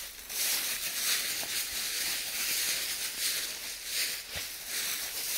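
Footsteps crunching and rustling through dry fallen leaves, an uneven run of crisp steps.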